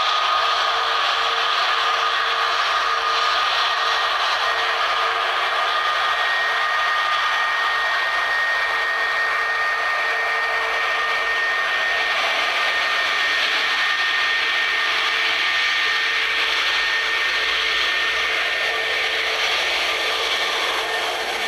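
Steady jet aircraft engine noise: a continuous rushing hiss with a few high, steady whining tones over it.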